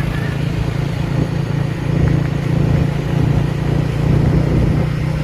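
A motor vehicle's engine running at a steady pace, a continuous low drone.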